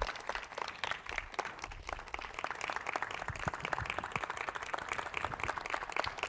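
A small audience applauding: many hands clapping in a dense, irregular stream of claps.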